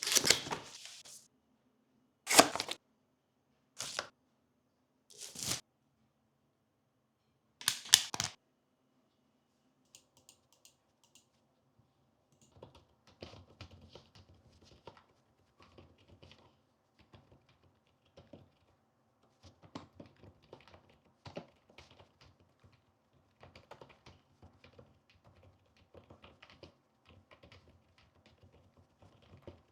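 A few loud, sharp handling sounds come first, the loudest of them at the start. From about twelve seconds in, a membrane keyboard is typed on, giving a run of soft, irregular keystroke clicks.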